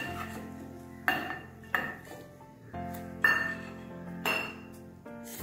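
Stainless-steel mixer-grinder jar and small steel bowls clinking: four sharp metallic clinks about a second apart as mint leaves are pushed into the jar, over soft background music.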